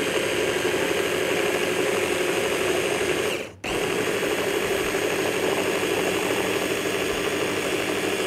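Small electric food chopper (hand-blender chopper bowl) running steadily as it blends a creamy dill-and-garlic dressing. The motor stops for a moment about three and a half seconds in, then starts again and runs on.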